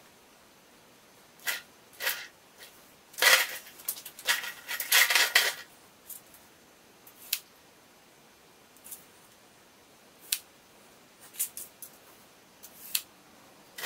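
Hand-work noises: a steel tape measure's blade is pulled out and handled against a steel plate and square, with two louder rasping bursts a few seconds in and scattered light metal clicks after.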